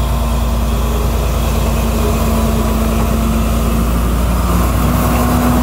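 Diesel engine of a Sri Lanka Railways Class S14 diesel multiple unit running at low speed as the train approaches, a steady engine hum with one held tone, growing slightly louder near the end as it draws close.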